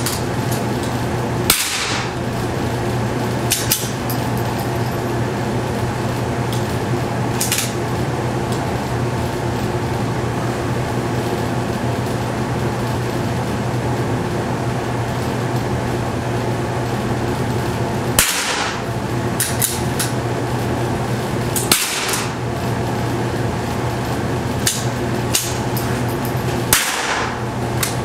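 Tikka T1X .22LR bolt-action rifle fired and cycled: a handful of sharp reports and clicks spaced seconds apart, with a long lull in the middle, over a steady low hum.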